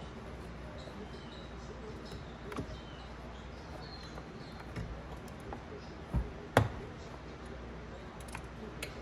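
Scattered light clicks and knocks of tools and metal parts being worked on a steering column, with two sharper knocks a little after six seconds, over a steady low hum.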